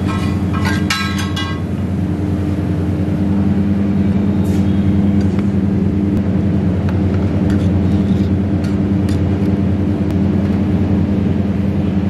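Steel spatula clinking and scraping on a large iron tawa in the first second or so, the metal ringing briefly after each strike, with a few lighter clicks later. Under it runs a loud, steady low hum.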